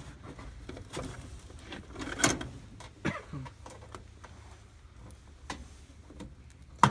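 Scattered light clicks, knocks and rustling as hands handle thick supply wires at a circuit breaker inside an air handler's sheet-metal electrical compartment, with a stronger knock about two seconds in and a sharp click near the end.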